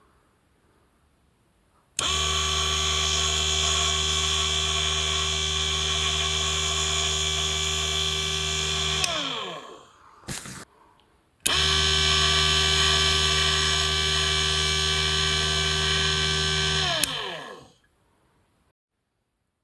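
Small cheap mini lathe motor switched on with a sudden start, running with a steady whine for about seven seconds, then switched off and winding down with a falling pitch. A couple of seconds later it is started again, runs steadily for about five seconds and winds down once more. The lathe turns normally without wobbling.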